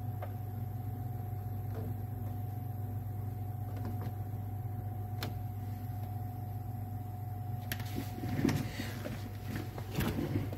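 Steady electrical hum from an energised control panel and variable frequency drive, a low drone with a thin steady tone above it, with a few light clicks of keypad buttons. From about eight seconds in, rustling handling noise joins as the phone is moved around the panel.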